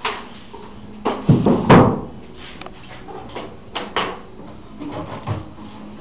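White beehive parts being handled: the hive's top lid lifted off and the box beneath it lifted out, with a sharp knock, then a heavier hollow clunk, then several lighter knocks and scrapes as the pieces are moved and set down.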